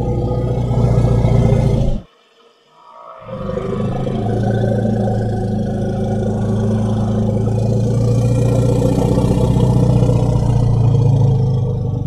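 Deep, steady growl from a Spinosaurus, as a dinosaur sound effect. It cuts out for about a second around two seconds in, then resumes.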